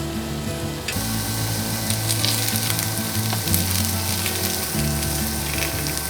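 Chicken-breast and bean-sprout tsukune patties sizzling as they fry in oil in a pan, the sizzle growing louder about a second in. Background music runs underneath.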